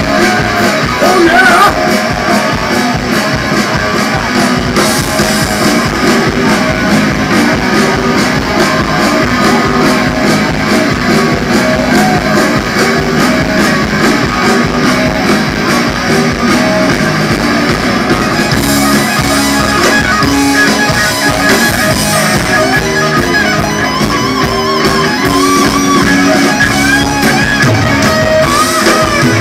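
A live rock band plays loud through a PA, with two electric guitars, bass guitar and a drum kit. There is no gap or break in the playing.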